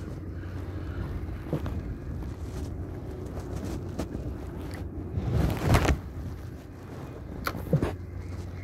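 Steady wind rumble on the microphone and moving water around a wading angler working a spinning rod and reel, with a louder rushing swell a little past halfway and a few light clicks from the reel, two of them close together near the end.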